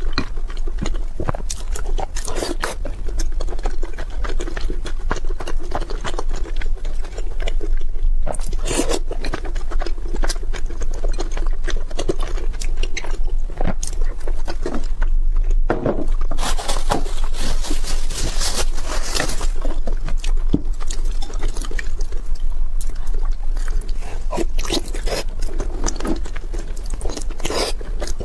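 Close-miked eating: wet chewing, lip smacks and slurps of soft food in sauce, with chopsticks scraping and tapping on a ceramic bowl. The clicks and smacks come thick and irregular, busiest in the middle of the stretch, over a steady low hum.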